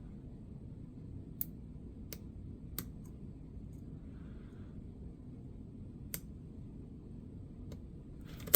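Lock picks clicking against the pin tumblers of a Master Lock 140 padlock: a few sharp, scattered ticks, with a louder click near the end.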